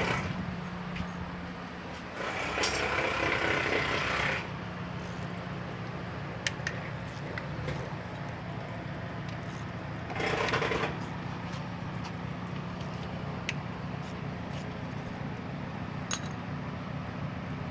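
Socket wrench working on small metal fittings: two stretches of ratcheting or scraping noise and a few sharp metallic clicks, over a steady low hum.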